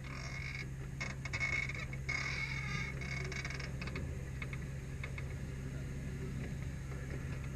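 Kiddie train ride running along its track: a steady low hum throughout, with a higher rattling squeal for a couple of seconds starting about a second in.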